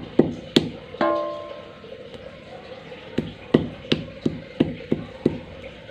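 Stone pestle pounding boiled jengkol beans on a flat stone mortar (cobek), making sharp knocks. There are two knocks in the first second, then a pause of about two seconds, then a run of seven at about three a second.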